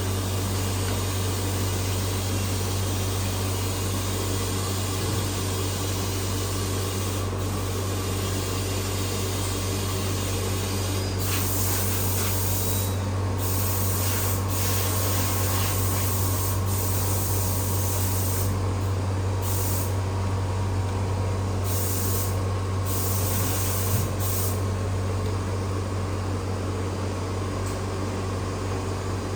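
Steady machine hum and hiss, like a fan or pump running, with a high hiss that cuts in and out several times midway.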